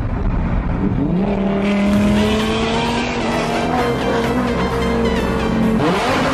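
Sports car engines revving up and then holding high revs at speed. A cut about six seconds in brings in another engine note rising as it accelerates.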